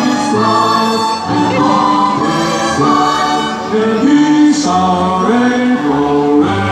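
Symphony orchestra playing, with a choir singing long, held notes that move in steps.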